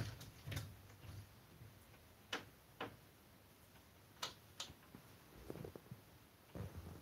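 Faint handling noise of a plastic brush balanced on a cat's head: a few sharp, irregularly spaced clicks and taps, then soft rustling and light thumps near the end as the brush is lifted off.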